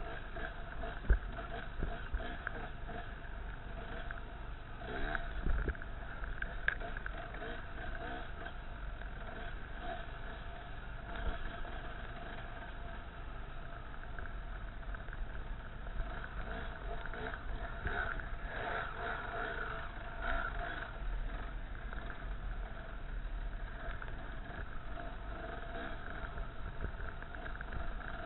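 Enduro dirt bike engine running steadily under the rider on a trail, with low wind rumble on the helmet-mounted microphone and a few sharp knocks from bumps, the loudest about a second in.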